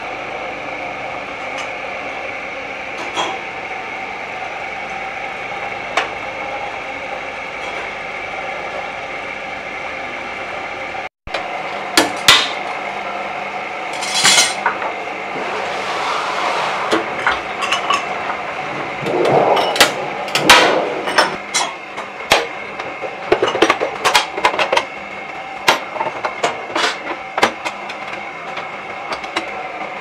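Circle-cutting shear running with a steady machine hum. After a short break about eleven seconds in, the steel sheet turning between its rotary cutting wheels gives many sharp, irregular metallic clanks and clinks over the hum as the disc blank is cut.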